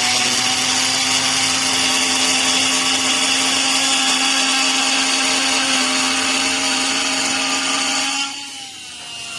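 Cordless oscillating multi-tool, set to speed 4 of 6, cutting into a 2x4: a steady motor hum under the rasp of the blade biting the wood. About eight seconds in the cutting stops and the tool runs on more quietly, its pitch sinking a little.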